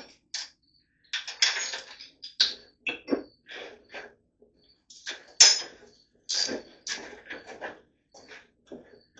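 Metal hand tools clinking and rattling in short, irregular bursts: sockets and wrenches being handled while working on the engine's fuel pump.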